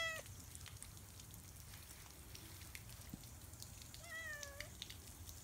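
Domestic cat meowing: the end of one meow in the first instant, then a single meow of under a second about four seconds in, its pitch dipping at the start and then holding. Faint ticks in between.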